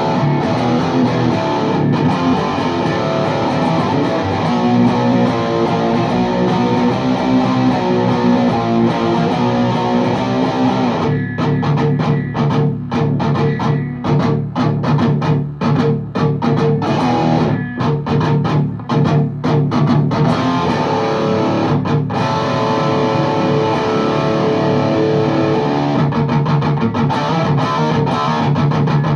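Gibson Les Paul Custom played through a VHT Deliverance D60 valve amp head (two KT88 power valves) into a 4x12 cabinet with Vintage 30 speakers, playing distorted rhythm chords. About a third of the way in it turns to a choppy riff of short, stopped chords with brief gaps. Near two-thirds of the way through it goes back to held, ringing chords.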